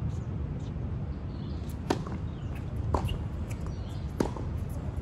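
Tennis rally on a hard court: a string of sharp pops from the ball being struck by racket strings and bouncing, the three loudest about a second apart, over a steady low background hum.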